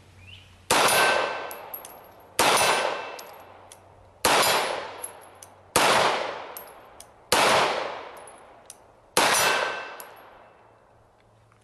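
Six shots from a semi-automatic pistol, fired about one and a half to two seconds apart. Each shot trails off in a long echo.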